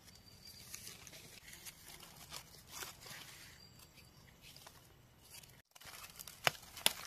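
Faint, irregular rustling and crackling of dry forest leaf litter being disturbed, with scattered small cracks and crunches.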